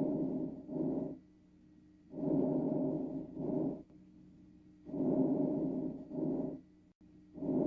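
A child's breath sounds, as played in a breath-sound recording: a regular, fairly fast breathing rhythm, about one breath every two and a half seconds. Each breath is a longer hissing phase followed by a shorter one, over a faint steady hum.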